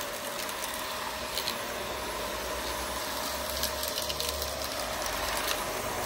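Vax Air Lift Drive Plus upright vacuum cleaner running steadily, a constant whine over a rush of air, as its brush bar works over artificial turf. A few faint clicks come through.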